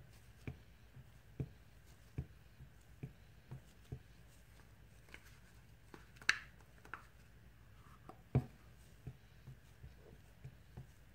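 A spatula scraping and tapping a plastic container of soap colorant, making irregular soft clicks and knocks, with a couple of louder knocks past the middle.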